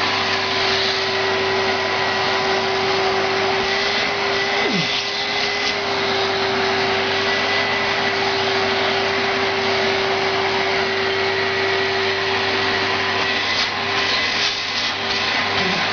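Hoover Sprint 900 canister vacuum cleaner running steadily, an even motor whine over the rush of air. The tone wavers briefly near the end.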